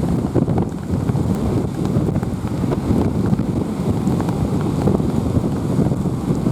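Strong wind buffeting the microphone over rough sea surf. The waves are heavy swell raised by a typhoon, and the low rumbling noise runs on without a break.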